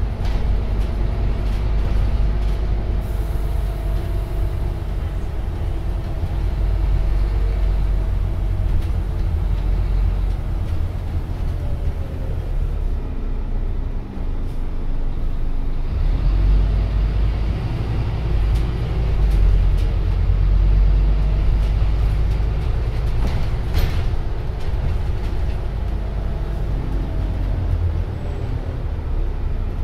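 Interior sound of a Scania Omnicity CN230UB bus under way: its five-cylinder diesel engine and driveline drone low and steady. Tones above the drone shift in pitch as the bus speeds up and slows in traffic.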